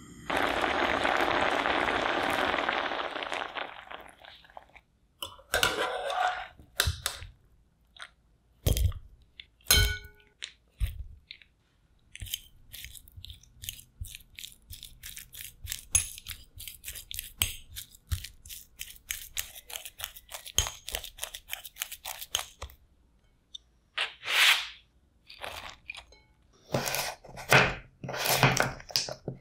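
A loud rushing hiss for the first few seconds, then a fork mashing boiled potato chunks in a glass bowl, with rapid small clicks and scrapes against the glass. Near the end, a knife chops through carrot onto a bamboo cutting board in a quick run of strokes.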